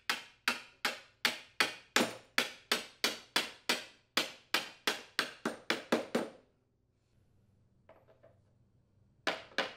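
Hammer tapping a flathead screwdriver to drive a steel hinge rod through a lawn mower's rear axle housing, a run of sharp strikes about three a second. The strikes stop about six seconds in and resume with two more near the end.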